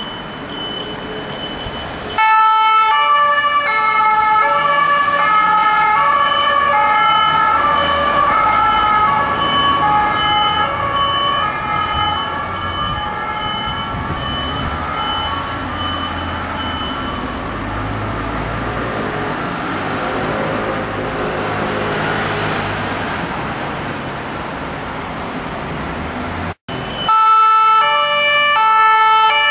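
Two-tone siren of a Mercedes-Benz Sprinter ambulance, switched on abruptly a couple of seconds in and stepping back and forth between two pitches. It fades as the ambulance drives away, leaving road and engine noise. After a sudden cut the siren sounds again loud and close.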